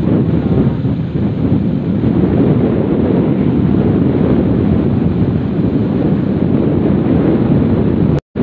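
Wind rushing on the microphone of a Honda XRM 125 motorcycle riding along at road speed: a loud, steady, low rush of noise. The audio cuts out for a moment near the end.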